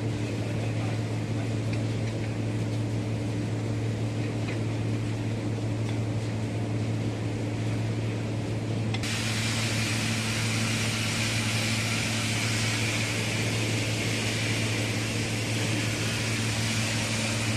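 Steady machine hum from a running motor. About nine seconds in, a steady hiss starts suddenly and continues over the hum.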